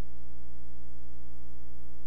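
Loud, steady electrical mains hum on the soundtrack, a low buzzing tone with a row of overtones above it and nothing else.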